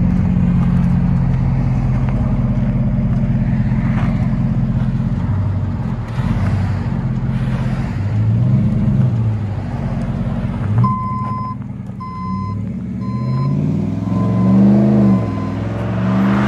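Ram 1500's 5.7-litre Hemi V8 idling steadily and deep through a Flowmaster 40 Series exhaust, with one short rev about eight seconds in. From about eleven seconds in, a run of evenly spaced beeps sounds while the engine's pitch rises and falls several times as the truck pulls away.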